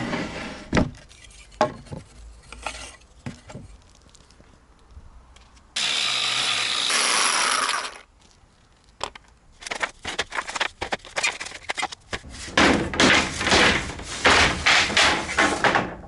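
Sped-up woodworking sounds: scattered knocks of pine boards being handled, then an electric jigsaw cutting a board in a steady two-second run near the middle, followed by a longer stretch of rapid, choppy cutting and handling noise.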